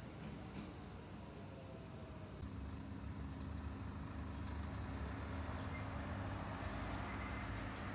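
A vehicle engine running steadily: a low, even hum that comes in about two and a half seconds in and grows a little louder, over a faint hiss of background traffic.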